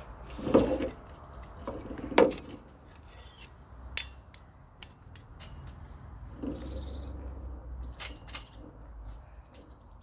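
Crowberries tipped from a stainless steel bowl into a metal cup, with two rattling pours in the first few seconds. About four seconds in comes a sharp metallic clink that rings briefly, then lighter knocks as the stainless ricer-type berry press is handled.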